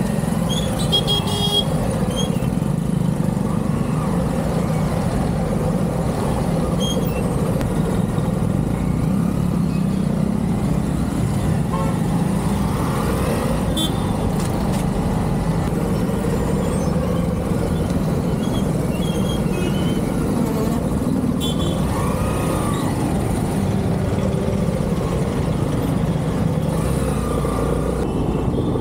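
Steady road and engine noise of a motorcycle being ridden, with a few short horn toots from traffic.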